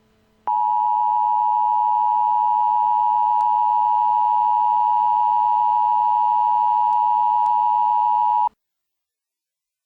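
Emergency Alert System attention signal: a steady two-tone beep (853 and 960 Hz) held for about eight seconds, then cut off abruptly. It heralds an Emergency Action Notification, the national-level alert.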